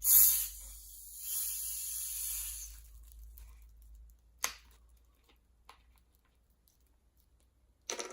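A 2-litre plastic bottle of carbonated Fanta being opened: a sudden loud hiss of escaping gas, then a softer hiss lasting about two seconds. A few light clicks follow.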